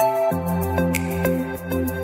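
Background music: a calm new-age style instrumental of held tones with light ticks, and a deep bass line that comes in near the start.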